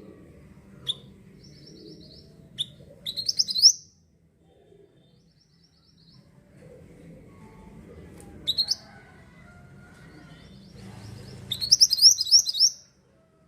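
Mantenan (pied bushchat) singing in short bursts of quick high chirps: single chirps, then a fast phrase, a pause of a few seconds, and a longer, loudest phrase near the end.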